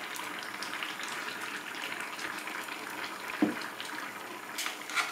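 Pot of soup simmering while spoonfuls of thick blended yam-and-potato paste go into it, liquid bubbling and stirring sounds over a steady hiss. A single sharp knock about three and a half seconds in.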